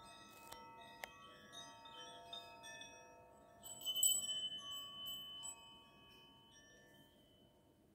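Hand-held Koshi chime swung on its cord, its inner rods tinkling into soft, overlapping ringing tones. A louder cluster of strikes comes around the middle, then the ringing fades away.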